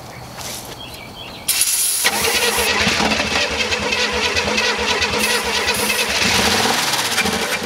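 A Chevy Nova's engine, long out of use and fresh with new ignition points, fires on starter fluid sprayed into the carburettor. It catches about a second and a half in, runs steadily with rapid pulsing for about six seconds, then cuts out near the end.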